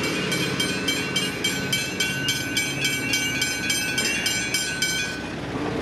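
Level-crossing hybrid bells ringing rapidly, about three strikes a second, over the low rumble of a V/Line VLocity diesel train moving off through the crossing. The bells stop near the end as the crossing clears.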